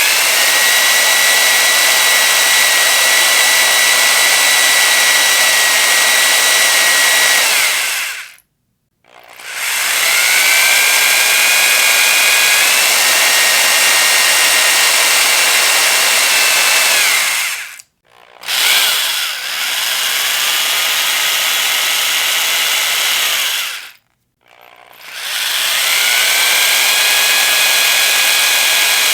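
Electric power drill run in four long bursts, each spinning up with a rising whine, holding a steady high whine and hiss for several seconds, then winding down, with a short silence between bursts. In the second burst the whine steps up in pitch partway through.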